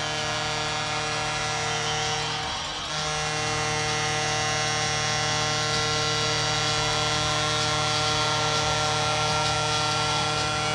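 Arena goal horn sounding a steady, many-toned blast to mark a home-team goal, with a brief break about two and a half seconds in.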